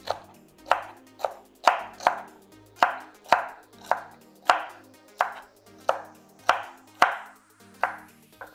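Knife chopping celery stalks on a wooden cutting board: a steady run of sharp chops, about two a second.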